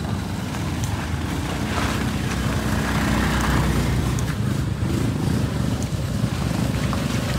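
A vehicle engine running steadily at low revs, a continuous low drone, with traffic noise around it.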